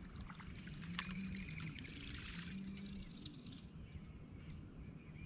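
Quiet river ambience: a steady high-pitched insect drone, scattered light clicks, and a faint low hum that comes and goes.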